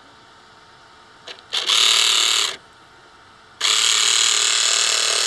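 Small electric gear motor of a 3D-printed spider robot's steering driving its printed plastic gears, run twice by hand-held wires: once for about a second, then again about two seconds later for a longer run that goes on past the end.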